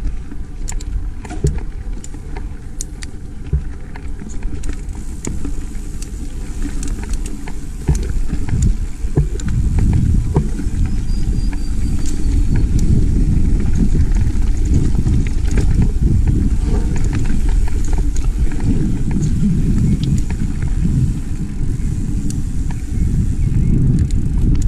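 Riding noise from a mountain bike on a dirt singletrack: wind buffeting the camera microphone and the tyres rumbling over the trail, with frequent clicks and rattles from the bike. It grows louder about a third of the way in, as the speed picks up.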